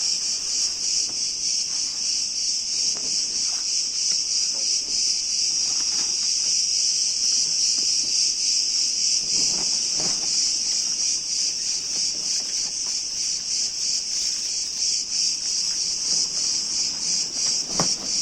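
A dense, steady chorus of insects chirring, loud and high-pitched with a fine pulsing texture. A few faint knocks come about ten seconds in and near the end.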